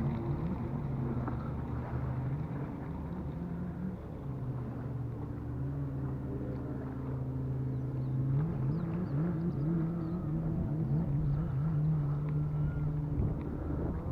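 Motor vehicle engine running. Its pitch drops about four seconds in, holds steady, then rises again from about eight seconds in, as if easing off and then speeding up.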